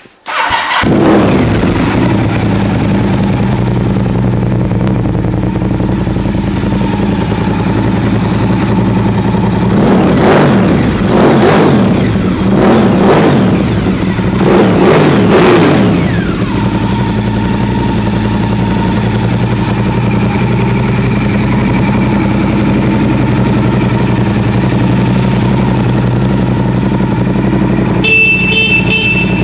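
Honda RC51's 999 cc V-twin engine idling steadily, with a run of quick throttle blips in the middle, the revs rising and falling several times before it settles back to idle. A brief high-pitched tone sounds near the end.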